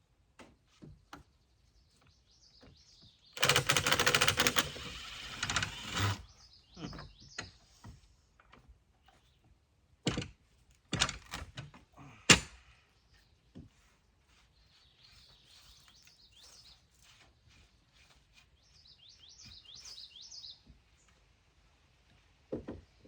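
Work on a sawmill's carriage cable fittings: a rapid, loud rattling burst of about three seconds, then scattered clicks and a few sharp knocks, the loudest about twelve seconds in. Birds chirp faintly in the second half.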